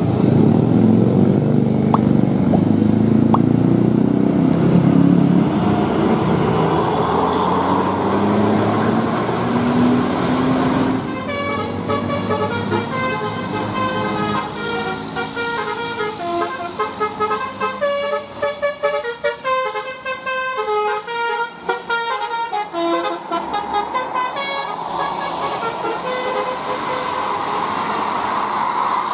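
Passing bus engine running, its pitch slowly rising, then after about ten seconds a basuri musical horn plays a tune of short tooting notes for roughly a quarter of a minute before the engine noise returns.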